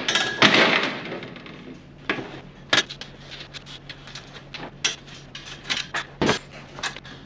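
Sheet-steel drawer parts clattering and scraping on a steel workbench top, followed by scattered light metallic clicks and clinks as small bolts and nuts are fitted by hand.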